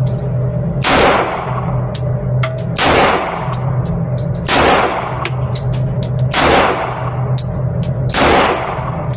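Pistol shots from a .40-calibre Glock, five in all, fired about two seconds apart, each with a ringing tail. Between the shots there are small sharp clicks, over a steady low hum.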